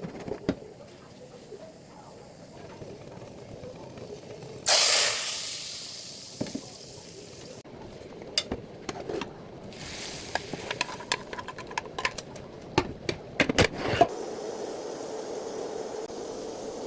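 Food hitting hot oil in a pan with a sudden loud sizzle about five seconds in that fades over a second or two, then a run of metal utensil clinks against the pot, then a steady low sizzle.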